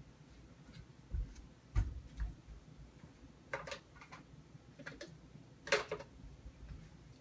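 Scattered light clicks and soft knocks from handling, irregular and a second or so apart, loudest about two seconds in and again near six seconds.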